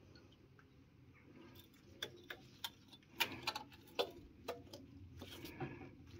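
A series of small, sharp metallic clicks and taps, starting about two seconds in, as a new thermostat is pressed and seated into its housing on the cylinder head.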